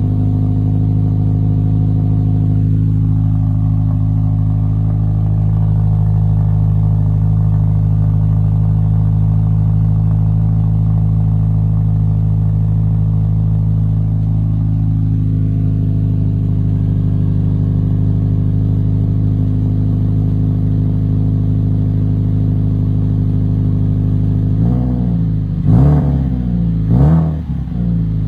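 Subaru WRX STI's turbocharged flat-four boxer engine idling steadily through a twin shotgun-style muffler on a cold start, then blipped twice in quick succession near the end.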